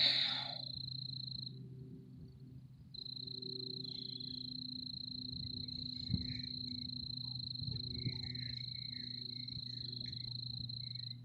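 A steady, high-pitched animal trill that breaks off for about a second and a half near the start and then carries on unbroken, over a low steady hum. A brief rustle right at the start.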